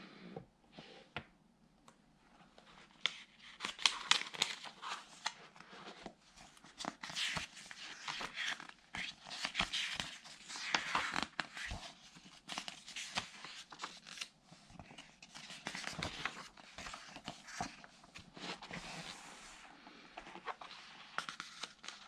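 Pages of a large-format paperback book being turned by hand: paper rustling and flapping, with sharp snaps as each leaf is flipped. After a few light taps it gets busier about three seconds in.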